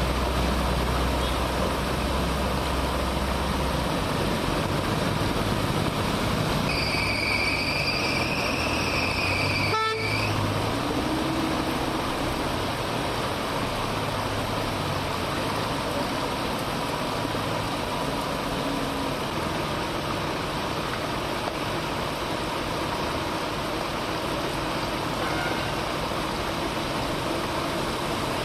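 Steady hiss of heavy rain and road traffic on flooded streets. A vehicle horn sounds for about three seconds, starting about seven seconds in, and is cut off by a sharp click.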